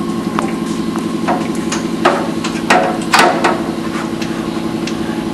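Hand tools knocking and tapping against a Chevy 350 automatic transmission's metal case as it is being taken apart: a series of sharp, irregular clanks, the loudest about two and three seconds in, over a steady hum.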